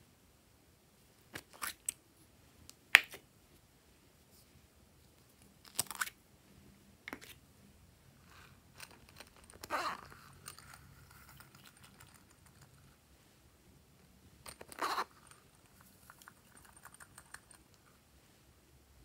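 Small plastic containers being handled and snapped open, a string of sharp clicks spaced a few seconds apart, with a longer scraping sound about ten seconds in and faint rustling near the end.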